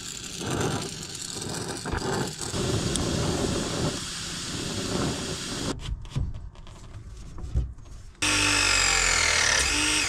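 A handheld gas torch hissing as its flame heats a copper refrigerant line stub. After a quieter pause with some handling knocks, a cordless pipe press tool's motor runs with a steady whine for the last couple of seconds as it crimps a copper fitting, sinking slightly in pitch.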